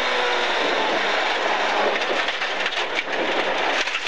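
Rally car at speed on a gravel road, heard from inside the cabin: the engine's steady high note fades about half a second in, leaving loud gravel and tyre noise with a rapid patter of stones hitting the car.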